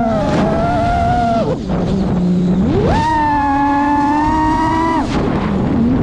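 Brushless motors and propellers of an iFlight Nazgul 5 HD FPV quadcopter whining, the pitch following the throttle: it sags about a second and a half in, sweeps up sharply near three seconds as the throttle is punched, holds for about two seconds, then drops again around five seconds.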